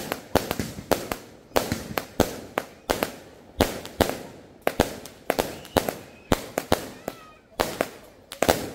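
Multi-shot 'machine gun' firework cake firing a rapid, continuous string of aerial shots: sharp bangs several times a second, each trailing off in a short hiss.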